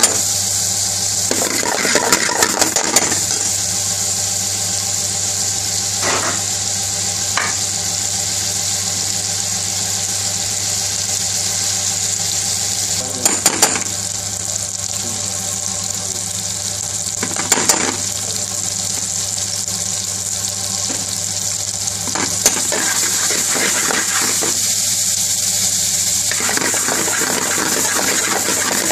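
Prawns sizzling in hot oil in an aluminium frying pan, a steady hiss over a steady low hum, with a metal ladle now and then scraping and clinking against the pan.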